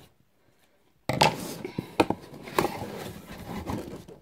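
A cardboard box being opened and handled: its flaps rubbing and scraping, with a few sharp knocks, starting about a second in.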